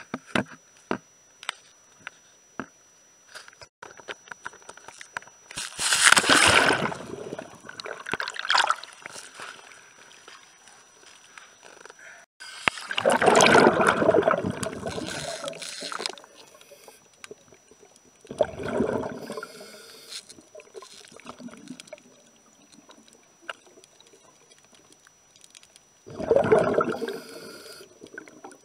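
Water gurgling and bubbling in separate bursts every few seconds, the longest lasting about three seconds. A few sharp clicks come in the first couple of seconds.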